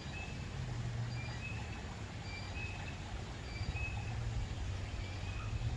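A bird calling in short high chirps, about one a second, over a steady low machine hum.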